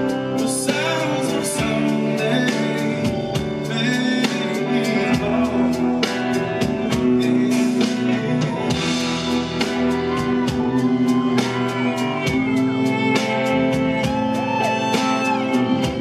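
Live rock band playing a song: male lead vocals over electric guitar, bass and a drum kit keeping a steady beat.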